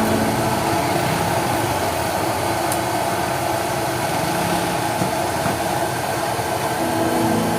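A steady machine noise running evenly, with no clear beat or change.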